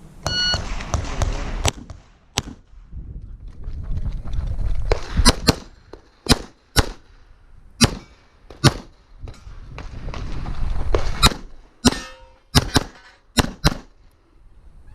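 Electronic shot timer's start beep, then a stage of competition pistol fire, likely a .40 S&W pistol: about fifteen shots, mostly in pairs and small groups with pauses between.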